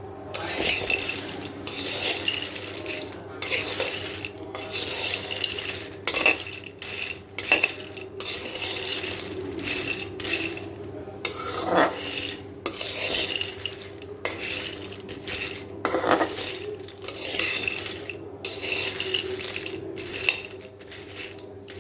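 Peanuts being stirred with a spatula in a dry pan, rattling and scraping in repeated strokes about once a second, over a steady low hum.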